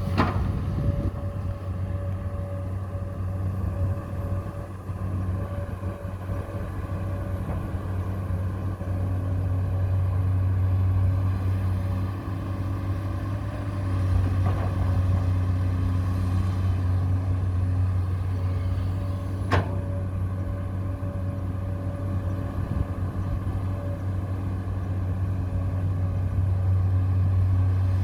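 A vehicle engine running steadily with a low, even drone, and one sharp click about twenty seconds in.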